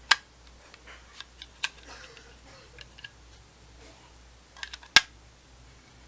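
Sharp clicks and light taps of small hard objects being handled: one loud click at the start, scattered fainter ticks, a quick cluster of taps just before five seconds and the loudest click about five seconds in.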